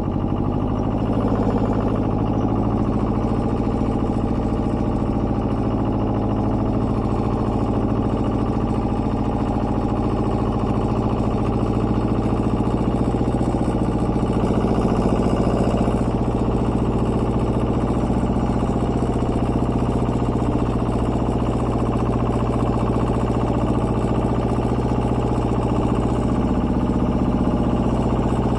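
Small tractor's engine running steadily while it pulls a subsoiler through the soil.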